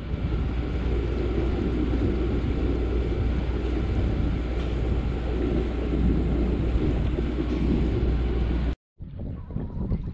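A yacht's engine running with a steady drone and a strong low hum. It cuts off abruptly near the end, and gusty wind noise follows.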